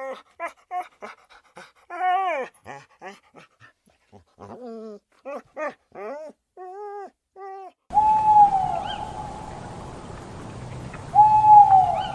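A dog whimpering in many quick, short, high cries. About eight seconds in, the recording cuts to a noisier one, where a cat meows twice, each meow long and falling in pitch.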